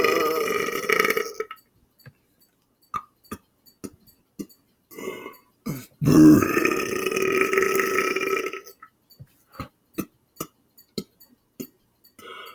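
A man belching on command: a long burp that ends about a second and a half in, a few seconds of short faint clicks, then a second long burp of nearly three seconds from about halfway through.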